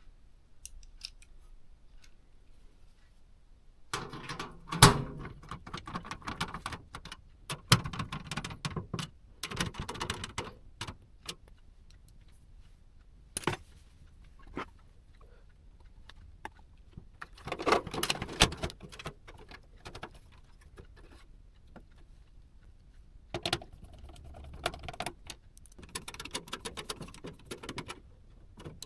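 Hands working on computer hardware: irregular clicks, knocks and small hard rattles in three bursts, with quiet gaps between.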